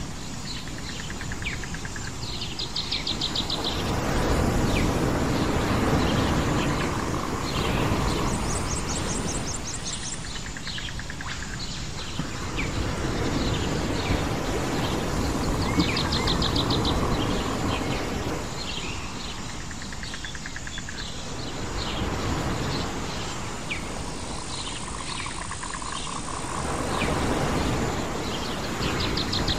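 Ambient island soundscape: waves washing in, the noise swelling and falling back every ten seconds or so, with birds chirping throughout and short, fast insect trills now and then.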